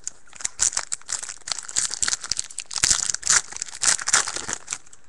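Hockey trading cards being handled and flipped through by hand: a dense run of dry rustling and snapping clicks that stops just before the end.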